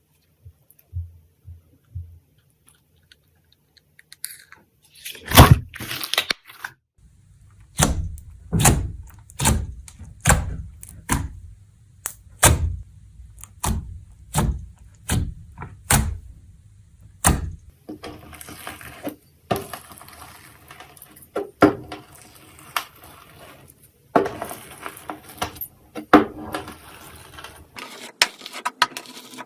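Crispy slime being handled by hand: a run of sharp thunks and pops about once a second, then denser crackling and squishing as it is kneaded.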